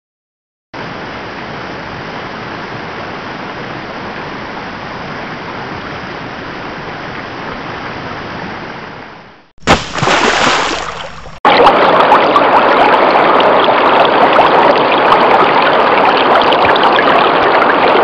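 A run of separate water sound effects: a steady flow of water for about nine seconds that fades out, then a short, sudden, louder splash of water, then a louder steady rush of flowing water.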